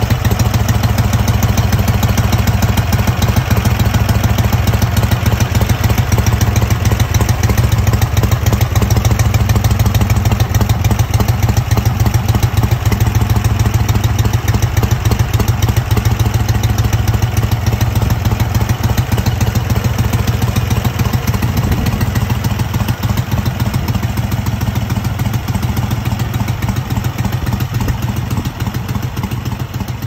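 1940 Harley-Davidson Knucklehead's overhead-valve V-twin engine running steadily at idle, a fast, even lope of exhaust pulses. It eases off a little in the last few seconds.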